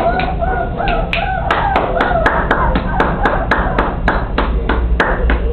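Steady rhythmic hand clapping, about five claps a second, starting about a second in, after a short wavering high-pitched sound.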